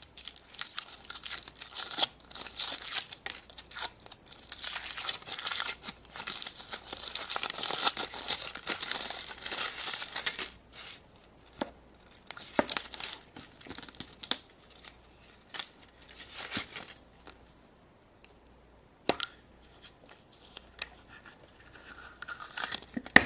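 Thin packaging wrapper being torn open and crinkled by hand, a dense crackling for about ten seconds, then scattered rustles and small clicks as the wrapping is handled more lightly and set aside.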